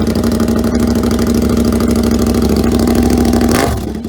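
KTM 1290 Super Adventure's V-twin idling with its exhaust silencer removed, running really loud through the open pipe. The engine note changes and dips briefly near the end.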